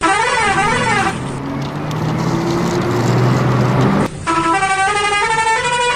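Electronic toy-vehicle sound effects: a wavering siren-like wail for about a second, then a low engine-like drone, then, about four seconds in, a short tune of stepped beeping notes.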